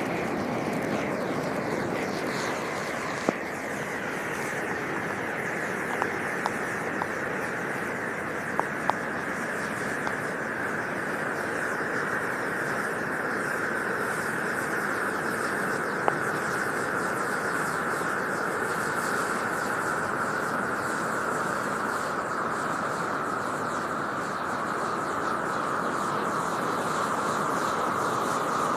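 ELIOS FDF hand signal flare burning with a steady hiss whose pitch slowly sinks, broken by a few sharp pops.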